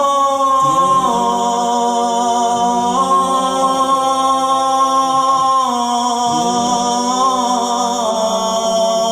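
Male voice chanting an unaccompanied Islamic ibtihal, drawing one syllable out into a long melisma. The held notes step up and down in pitch every second or few, with small ornamental turns.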